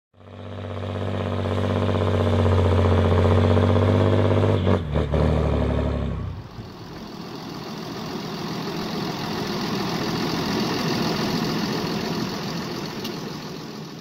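New Holland T7.235 tractor's six-cylinder diesel engine running close by at steady revs, dropping sharply in pitch about five seconds in. About six seconds in the sound cuts to a rougher, noisier running of the tractor on the move.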